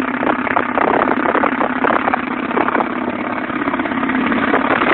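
Anti-aircraft autocannon firing long, rapid bursts: loud shots so close together that they blur into one continuous, distorted din.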